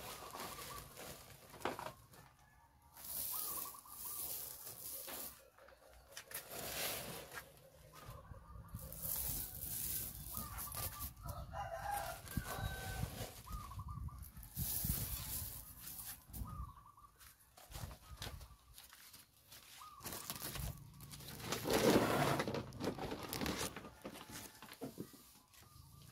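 Chickens clucking, with a rooster crowing, over intermittent bursts of rustling noise.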